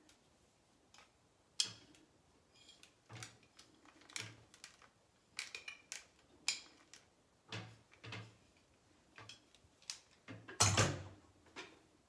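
Scattered light clicks and knocks from a BaBylissPRO 1¼-inch spring curling iron being handled, its clamp opening and closing on locks of hair. The loudest knock comes near the end.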